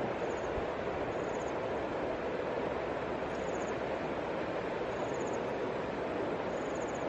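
Steady rushing wind-and-water noise with no distinct events. Faint short high trills recur every second or two.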